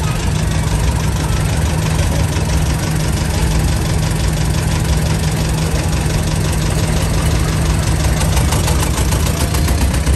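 Vintage tractor engine running at low revs close by as the tractor rolls slowly past, a loud, steady sound with an even, rapid beat.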